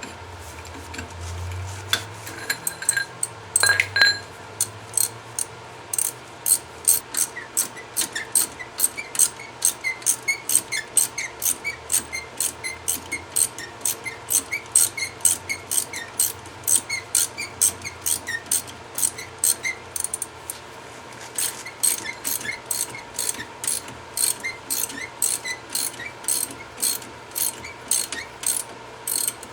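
A socket ratchet clicking steadily, about two clicks a second, each with a slight squeak, as an Allen-head socket backs out a brake caliper bolt. There are a few knocks in the first seconds, as the stiff bolt is worked loose with a cheater bar on the ratchet.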